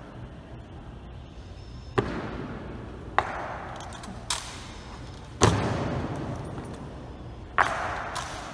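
Five sharp impacts from an honor guard's ceremonial rifle drill, spaced one to two seconds apart, the fourth the loudest. Each one rings on in the echo of the large stone hall.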